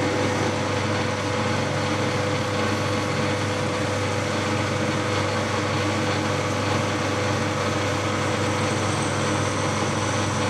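Milling machine spindle running steadily while a drill is fed into the workpiece, a steady even-level machine hum, with the drill backed off to clear chips.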